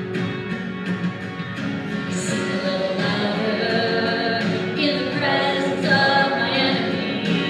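A worship song: singing over acoustic guitar accompaniment.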